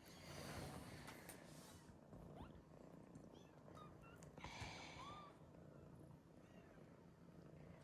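Faint, steady cat purring, with a few short, faint high squeaks about midway.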